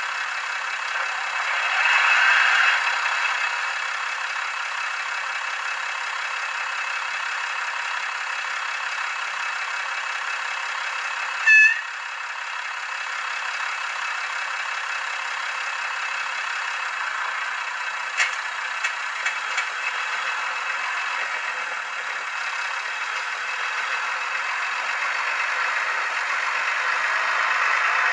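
Sound decoder in an H0 model of the VT 98 Uerdingen railbus playing its simulated diesel engine at idle through the model's small speaker. The sound is thin, with no bass. A short high tone sounds about a third of the way in, and the engine sound grows louder near the end as the railcar starts to move.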